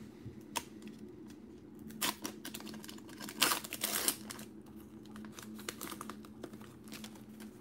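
Foil wrapper of a baseball trading-card pack being torn and peeled open by hand: a few short crinkling bursts, the loudest about three and a half seconds in, over a steady low hum.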